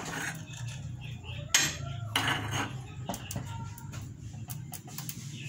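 Sharp metallic clicks and clinks from a mechanical screen-stretching frame being turned to tension silkscreen mesh, with one louder knock about a second and a half in, over a low steady hum.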